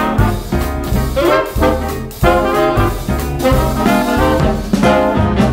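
Upbeat swing-style background music with brass and a steady beat.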